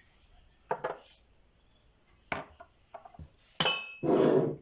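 A spoon knocking and clinking against a bowl as leftover mixture is scooped into it: three sharp knocks about a second and a half apart, the third ringing briefly, then a louder short scrape near the end.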